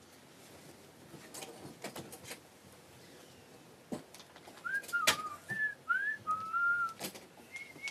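A person whistling a short run of gliding notes through the second half, some rising and some falling. Before it come a few light knocks and rustles, with one sharper knock partway through the whistling.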